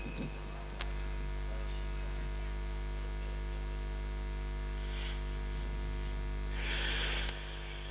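Steady electrical mains hum with a faint hiss from the public-address sound system, carried through the open microphone. It steps up slightly with a click about a second in and drops back with another click near the end.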